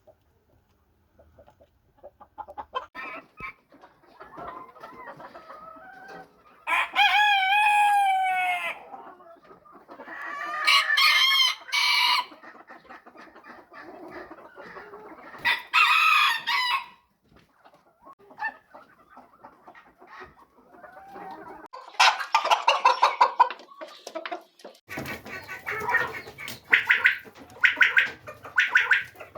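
Chickens clucking, with roosters crowing four times in long, pitched calls; near the end a run of rapid, repeated clucking.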